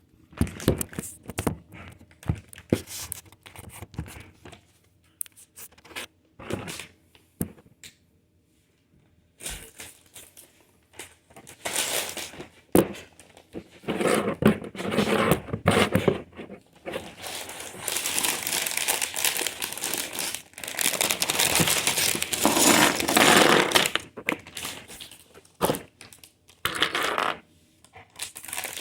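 Plastic bags of Lego pieces crinkling and tearing, with scattered sharp clicks. The crinkling comes in long stretches through the middle, and the clicks are sparse at the start and again near the end.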